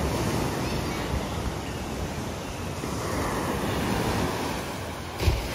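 Wind buffeting the microphone with a steady rushing noise, and one short thump near the end.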